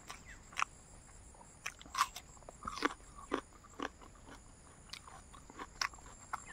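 A person chewing crunchy dried fried pork close to the microphone: irregular crunches and mouth clicks, loudest about two seconds in and again a little past the middle.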